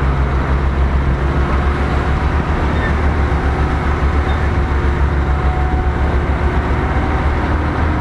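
Heavy truck's diesel engine running with a steady deep rumble as the loaded bitrem moves slowly over a dirt road.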